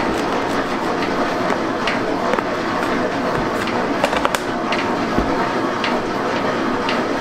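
A machine running steadily with scattered clicks and knocks, the loudest of them about four seconds in.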